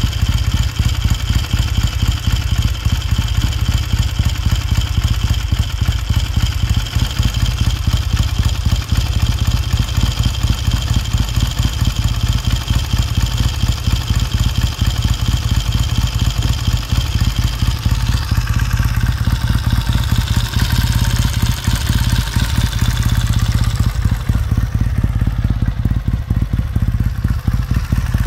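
Freshly rebuilt 1969 Triumph T100C's 500 cc parallel-twin engine idling steadily after a cold start, its firing beat even throughout.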